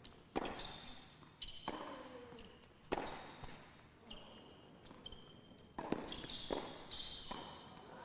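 Hard-court tennis rally: several sharp racket strikes on the ball, irregularly a second or two apart, with short high-pitched squeaks of players' shoes on the court. There is a brief grunt with a shot about two seconds in.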